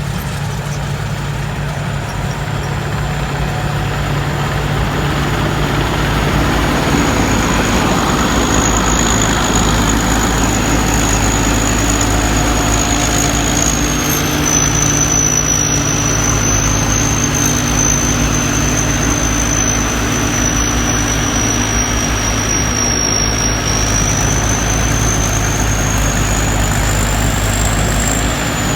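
Rice combine harvester's turbocharged diesel engine running hard, with a high turbo whistle over the engine note. The engine picks up about six seconds in; the whistle sags slightly in pitch through the middle and climbs again near the end.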